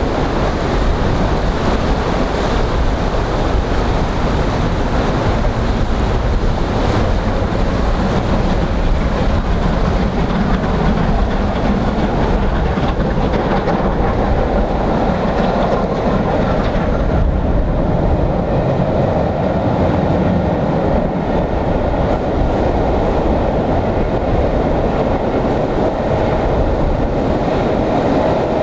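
Strong wind buffeting the microphone, steady throughout, over a train running by: steam locomotive 35018, a Southern Railway Merchant Navy class Pacific, hauling eleven coaches.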